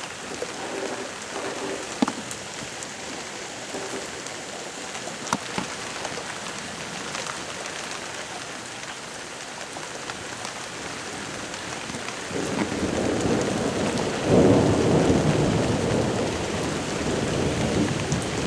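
Steady rain from a supercell thunderstorm, with a few sharp ticks in the first half. About twelve seconds in, a long low roll of thunder builds and becomes the loudest sound from about fourteen seconds on.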